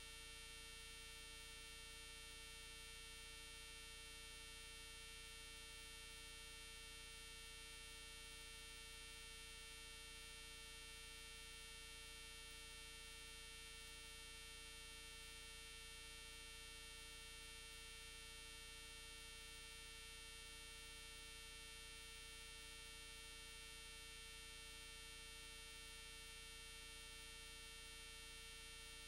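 Near silence: a faint, steady hiss and hum with no events in it, the noise floor of the camera's audio.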